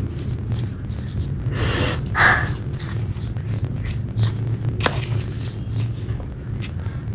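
Wet red clay paste squished and kneaded by hand in a plastic tub: irregular wet squelches and small pops, the loudest about two seconds in, over a steady low hum.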